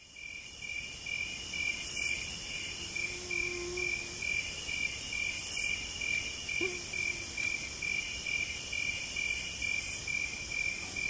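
Insects chirping: a steady high chirp pulsing about three times a second, under a higher shrill buzz that comes and goes in spells of a second or so.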